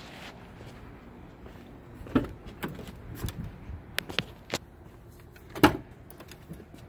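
Passenger door of a Chevrolet Silverado 2500HD pickup being opened: a latch clunk about two seconds in, then several smaller clicks and knocks, and a louder knock near the end.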